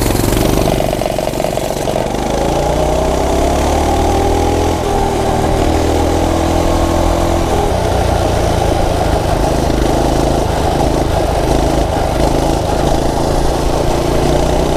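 Coleman mini bike's single-cylinder four-stroke engine running steadily at speed while riding, its pitch rising gently in places as the revs climb.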